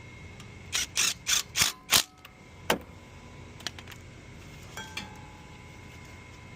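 Metal tool work on a car's rear brake caliper: five quick, sharp metallic strokes about a third of a second apart, then one more about a second later, followed by a few faint clicks.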